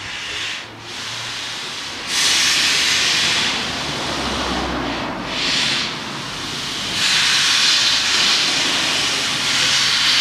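Steam locomotive's cylinder drain cocks hissing loudly in long blasts as the engine moves slowly in, the loudest blasts coming about two seconds in and again from about seven seconds on. A low rumble from the engine runs under the hiss near the middle.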